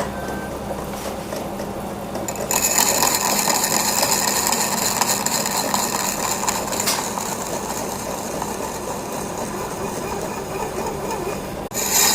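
Lathe running with a steady hum while a cutting tool turns down a wooden log; about two and a half seconds in the tool bites and a louder, even hiss of wood being cut takes over.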